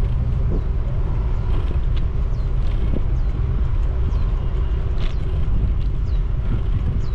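Steady rumble of a motorbike and the city traffic around it, heard from the moving bike, with a few faint short high chirps.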